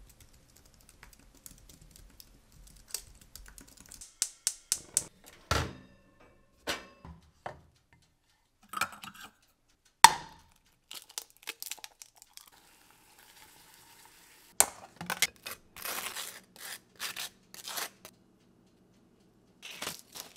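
Light tapping on a low-profile computer keyboard, then kitchen handling sounds. A sharp crack about ten seconds in as an egg is broken on the rim of a frying pan, a faint sizzle, then runs of rapid clicking from a spice grinder being twisted over the food near the end.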